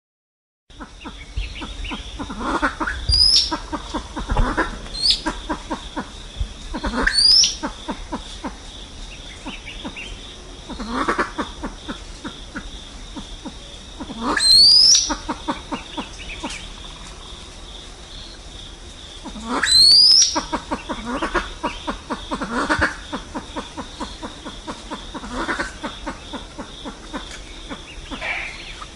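Pheasant calls (Lophura, silver pheasant type): bouts of rapid short clucking notes, each with a sharp rising whistle, repeated every few seconds. A steady high pulsing trill runs underneath.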